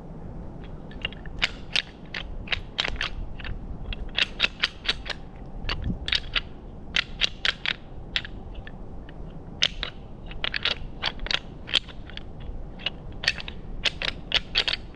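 Dry leaves crunching and crackling under footsteps, coming as irregular clusters of sharp crisp clicks.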